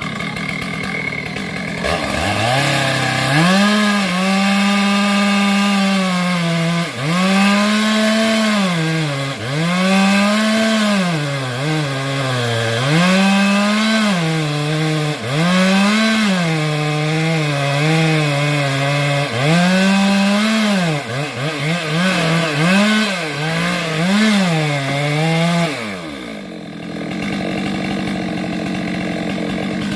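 Stihl MS 462 two-stroke chainsaw revving up about two seconds in and cutting into sengon wood, its engine pitch dipping and recovering again and again as the chain takes load in the cut. Near the end it drops back to a lower, steady idle.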